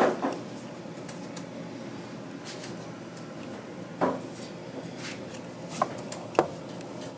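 A steady background hiss broken by a handful of sharp clicks and knocks: two at the start, one about four seconds in, and two sharper ones near the end.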